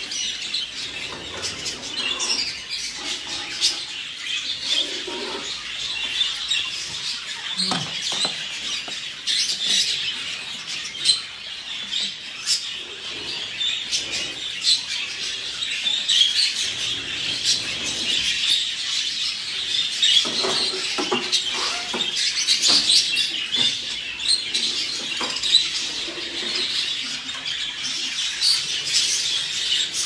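Many budgerigars chattering and chirping continuously in a breeding room, with occasional sharp clicks and knocks.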